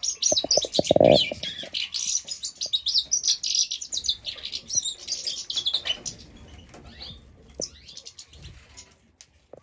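Young birds chirping rapidly in dense, overlapping high calls, with a brief lower sound about a second in; the calling thins out and grows quieter after about six seconds.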